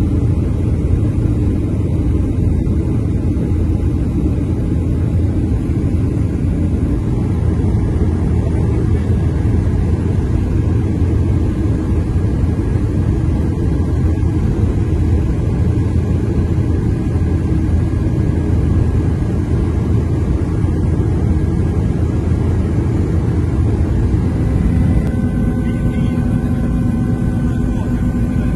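Steady low rumble of a vehicle on the move, engine and road noise together. Near the end a steadier engine hum with several tones joins in.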